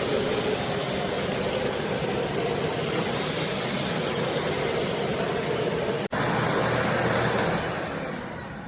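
Aspiron bagless canister vacuum cleaner running steadily. Near the end it is switched off and the motor's whine falls as it spins down.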